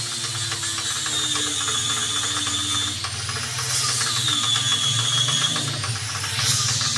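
Rapid, even mechanical clicking like a ratchet, over a steady low machine hum, as a quick-release fitting is being put onto the airgun test tank. A few faint whining tones glide down and then hold steady.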